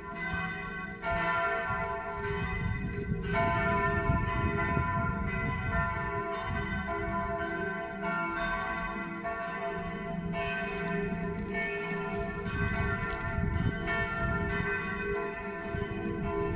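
Church bells ringing on and on, several bells struck in turn so their ringing tones overlap, over a low rumble.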